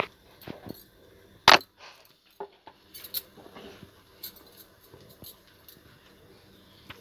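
Egg-dipped bread slices frying in ghee on a tava over low heat, with light crackling and spitting clicks. A sharp clink of a utensil against the pan about a second and a half in is the loudest sound, followed by a few lighter knocks as more bread goes onto the pan.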